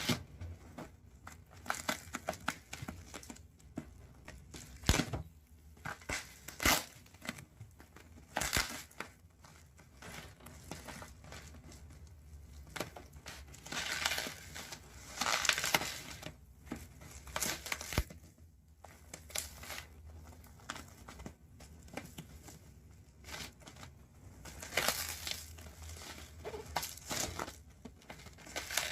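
Packaging being handled and opened: crinkling and tearing in irregular short bursts, with scattered clicks and knocks.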